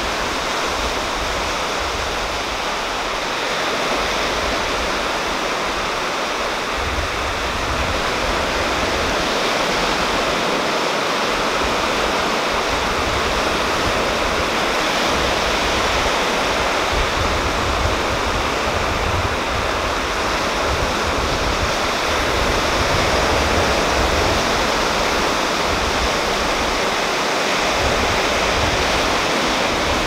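Small sea waves washing onto a rocky shore: a steady rush of surf with no single breaking wave standing out.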